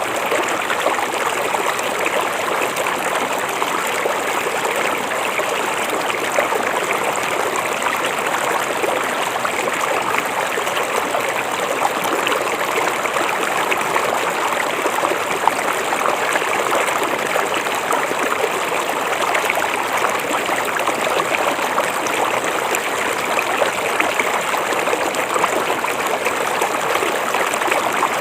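A river flowing over shallow stones, giving a steady, even rush and babble of water.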